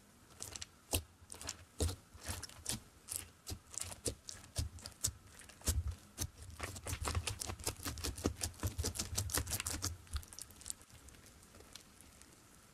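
Fingers poking and pressing crunchy blue slime, making a fast, irregular run of sticky clicks and pops. The clicks are densest about halfway through and thin out near the end.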